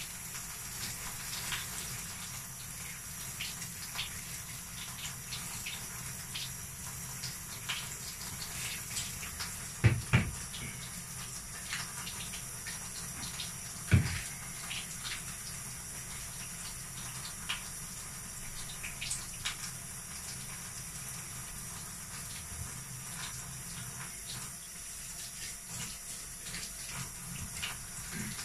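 Handheld shower spraying water steadily onto dogs in a bathtub, with small splashes and clicks throughout. Two loud knocks stand out, about ten and fourteen seconds in.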